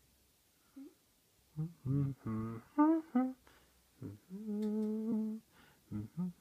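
A person humming: a run of short notes that slide up in pitch, then one longer held note, then a few brief hums near the end.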